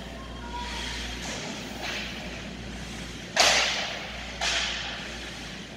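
Hockey puck and sticks cracking on the ice and boards, two sharp hits echoing through the arena: the louder a little past halfway, the second about a second later, with fainter clacks before them.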